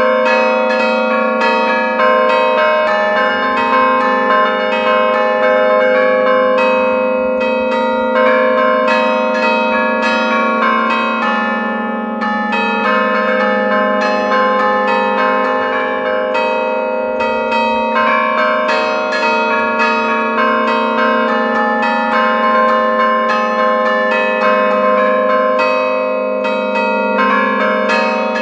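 Five-bell Bergamasque concerto in A-flat, 1907 Pruneri bronze bells, played as allegrezze from a bell keyboard. The bells are struck in quick, continuous melodic patterns, heard loud and close from inside the bell chamber.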